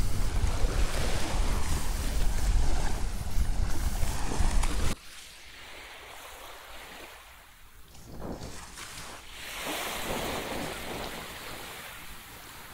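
Wind buffeting the microphone with a loud, deep rumble that cuts off suddenly about five seconds in. After it, a quieter wash of surf swells twice.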